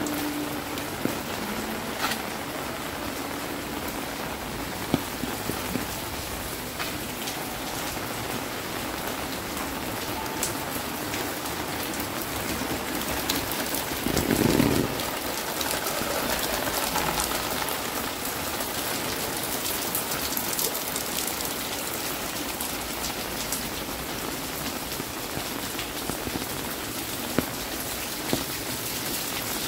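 Steady rain falling on the paving and hard surfaces of a narrow alley, with scattered sharp drips and ticks. A brief louder rush comes about halfway through.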